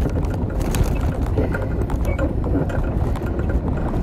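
Steady low rumble of a bicycle being ridden along an asphalt street: tyre and road noise mixed with wind on the microphone.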